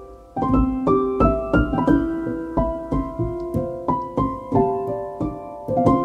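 Calm solo piano background music: single notes and chords struck about twice a second, each ringing on and fading.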